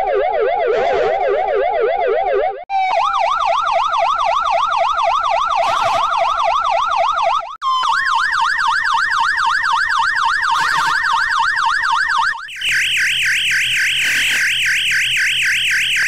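Ambulance siren sound effect warbling rapidly up and down, played in four successive altered versions. Each version is pitched higher than the last, with a brief break between them.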